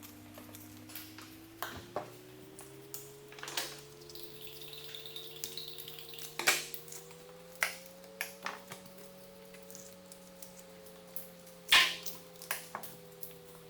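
Butcher's knife working a steak off the bone: scattered sharp clicks and taps of the blade against bone and cutting board, two louder knocks about six and a half and nearly twelve seconds in. A faint steady hum sits underneath, slowly rising in pitch over the first eight seconds.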